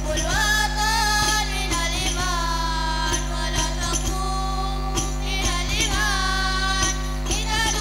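A hadroh ensemble performing a sholawat: a singer's wavering melody over frame drums and a jingling tambourine beating a steady rhythm, amplified through a PA with a constant low electrical hum underneath.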